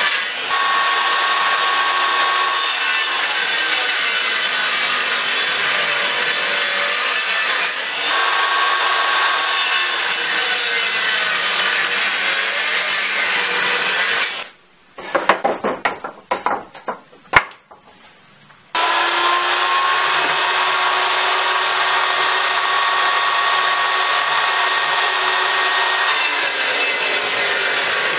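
Power saw cutting wood, its motor running steadily with a whine over the rasp of the cut. About halfway through it stops for a few seconds, leaving scattered knocks, then spins back up and cuts on.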